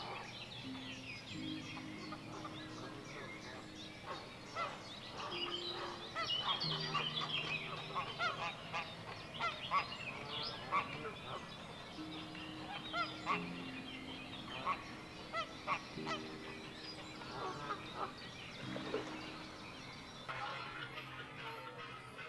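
Geese honking repeatedly, many short calls overlapping and loudest in the middle of the stretch, over soft background music of slow held notes.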